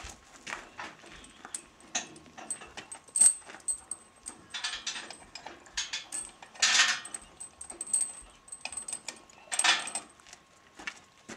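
Metal fittings of a horse's cart harness clinking and jingling irregularly as it is handled and fitted, with a few louder rattles about midway and near the end.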